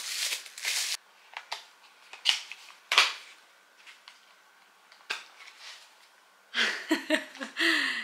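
Plastic bubble-wrap sleeve crinkling as it is pulled off a small cardboard cosmetics box, followed by scattered light clicks and rustles of the box being handled and opened. A woman's voice comes in near the end.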